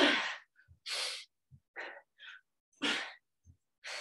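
A woman breathing hard during a dumbbell row exercise: short, forceful exhalations about a second apart, the strongest about one and three seconds in. It opens with a brief falling vocal sound.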